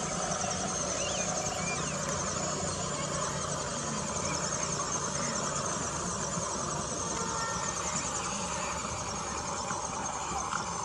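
Electric motor and gear train of a 1/16-scale WPL Toyota Hilux RC crawler truck, 4WD with four-wheel steering, whining steadily as the truck climbs a rocky dirt slope.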